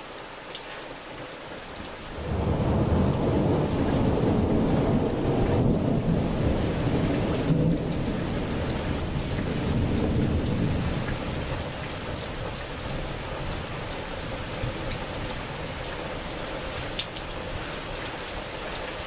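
Thunder: a loud low rumble breaks in suddenly about two seconds in, goes on for several seconds and slowly fades. Steady rain falls throughout.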